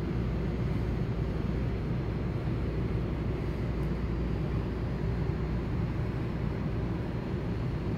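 Steady, even low rumble with a hiss above it, filling a large ice rink, while water is sprayed from a hose onto the ice.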